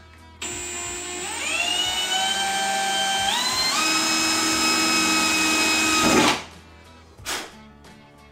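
Cordless drill boring a pilot hole through the Hilux's sheet-metal quarter panel. The motor's whine climbs in pitch as it spins up, steps higher about three and a half seconds in, and cuts off suddenly about six seconds in.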